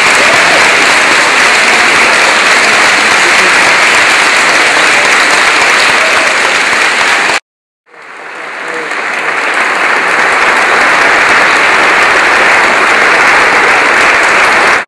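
Concert audience applauding steadily. The applause drops out abruptly about seven seconds in, fades back in after a moment, and cuts off sharply at the end.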